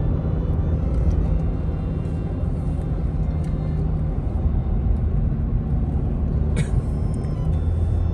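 Steady low drone of a car's engine and road noise heard from inside the cabin while driving. A brief high click about six and a half seconds in.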